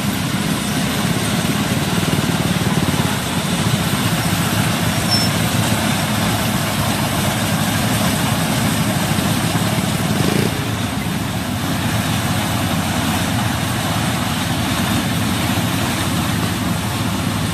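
Gatra compact rice combine harvester running steadily as it drives through and cuts standing rice; a continuous engine and machinery drone that turns a little quieter and duller about ten seconds in.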